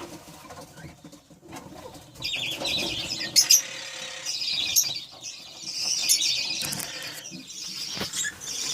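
Budgerigars chattering and warbling in fast, high-pitched runs that start about two seconds in and carry on with short pauses, with a couple of sharp clicks among them.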